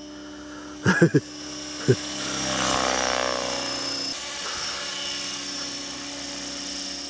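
Align T-Rex 600 radio-controlled helicopter flying, its rotor and drive giving a steady whine. The sound swells for a couple of seconds with its pitch sliding, then changes abruptly and settles. Short loud sounds break in about a second in and again near two seconds.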